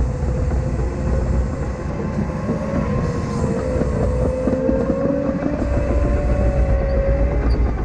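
Caterpillar 953K track loader at work: a steady diesel rumble with a whine that wavers slightly in pitch.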